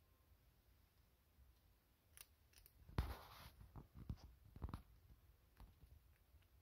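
A chinchilla biting and chewing a banana yogurt treat, faint: one sharp crunch about three seconds in, then a few short crisp crunches.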